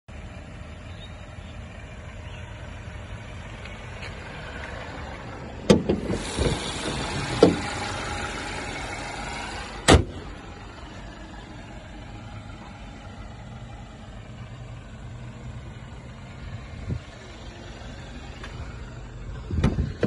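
Parked Mercedes-Benz E250 sedan with a low steady rumble as it idles. A few sharp knocks come about six, seven and a half and ten seconds in, and a car-door clunk comes just before the end.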